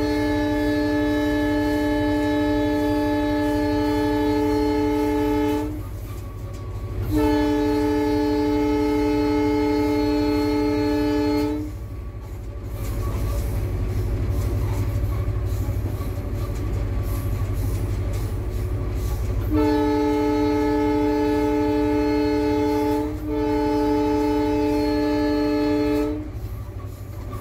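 Horn of an EMD GT46PAC (WDP4) diesel locomotive heard from inside the cab, sounding long blasts: one already sounding that stops about six seconds in, a second of about four seconds, then after a pause two more blasts back to back near the end. Under it the locomotive's steady running noise of its 16-cylinder diesel engine and wheels on rail.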